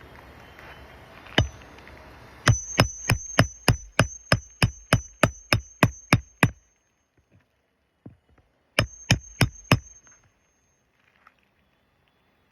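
Hammer driving roofing nails into a new asphalt shingle, metal striking metal with a short ring. One blow comes first, then a fast run of about fifteen blows at about three a second, and after a pause four more.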